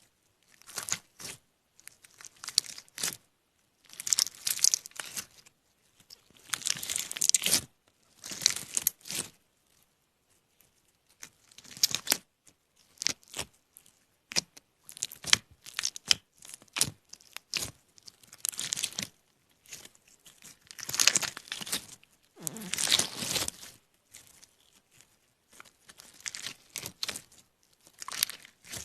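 Irregular bursts of close-up crinkling and tearing, each lasting up to a second or so, separated by short pauses.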